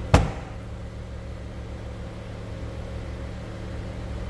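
A single sharp thump just after the start, typical of a Range Rover seat backrest folding down onto its stop, then a steady low hum.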